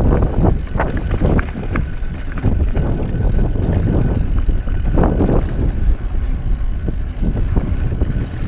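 Mountain bike ridden over rocky dirt singletrack: a continuous low rumble of tyres and wind on the microphone, with frequent irregular clatters and knocks as the bike rattles over rocks.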